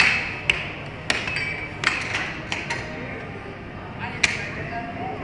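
Air hockey puck and mallets clacking on the table: a run of sharp hard hits, several in the first three seconds and one more about four seconds in.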